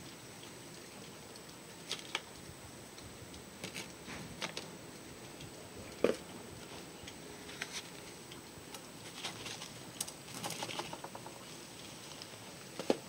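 Scattered light clicks and taps over a low steady hiss, with one sharper knock about six seconds in and a cluster of small clicks near the end.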